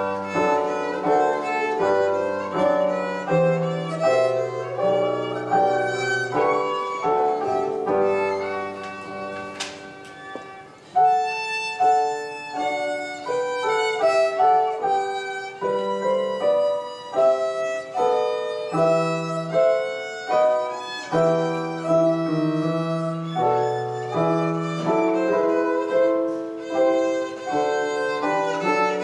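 Solo violin playing a bourrée with digital piano accompaniment. The music softens about eight seconds in, then comes back in strongly about eleven seconds in.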